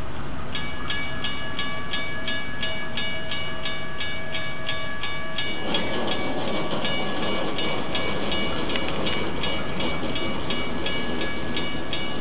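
A bell rings in a steady, even rhythm as a Norfolk Southern diesel freight train approaches. The train's engine and wheel rumble grows louder about halfway through.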